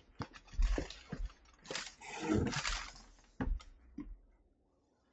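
Packaging of a newly opened keyboard box being handled: irregular rustling of cardboard and wrapping with several knocks and thumps, dying away near the end.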